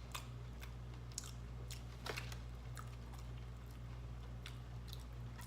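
Close-miked chewing with wet mouth smacks: short irregular clicks, about two a second, over a steady low hum.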